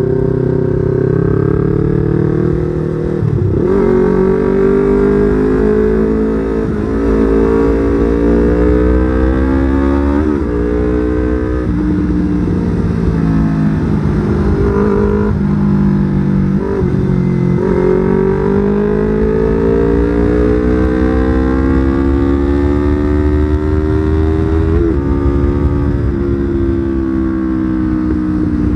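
Yamaha R25's 250 cc parallel-twin engine running under way, its pitch climbing steadily and then dropping sharply at each of several gear changes.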